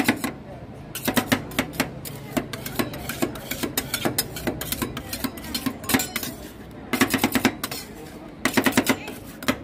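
Metal spatulas chopping and scraping on a steel cold plate while rolled ice cream is mixed: quick runs of sharp metallic clacks with short pauses between, the densest runs about a second in and again near the end.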